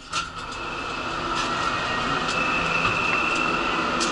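Ferry passenger elevator starting and running upward: a knock just after the start, then a steady mechanical hum with a high whine that builds over the first couple of seconds and holds, with a few light clicks.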